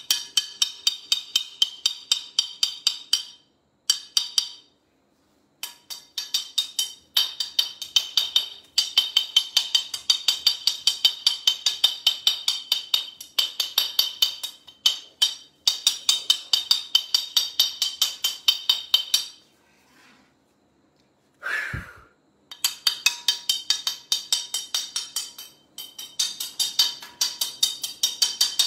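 Metal kitchenware, a pot lid or tray, being banged rapidly with a utensil in pot-banging protest fashion, about five ringing clangs a second, in runs broken by short pauses. A single heavier thump about three-quarters of the way through.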